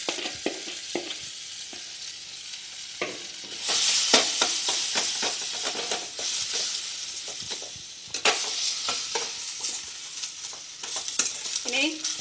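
Mashed potatoes and peas frying in a little oil in a steel kadhai, sizzling, while a steel spoon mashes and stirs them with repeated clinks and scrapes against the pan. The sizzle grows louder about four seconds in.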